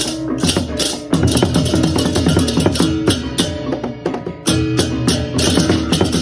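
Balinese baleganjur gamelan playing a lelambatan piece: interlocking strokes of tuned metal gongs over drums, with repeated crashing cymbal bursts. The loudness drops briefly about four seconds in, then the full ensemble comes back strongly.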